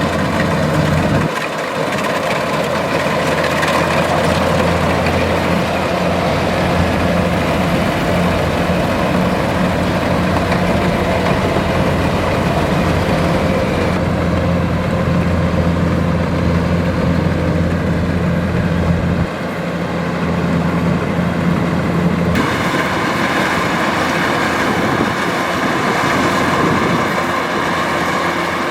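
Kubota DC-105X rice combine harvester running: a loud, steady diesel engine drone with the clatter of its machinery. The sound changes abruptly a few times, dropping or shifting its low hum, as between different shots.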